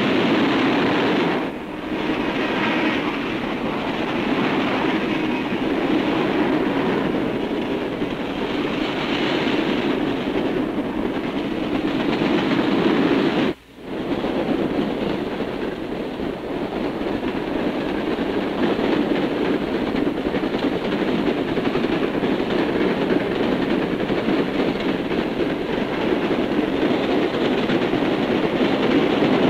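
A freight train of railroad cars rolls past at speed with a steady rolling roar of wheels on rail and some clickety-clack. The sound dips briefly about a second and a half in and cuts out sharply for a moment about halfway through.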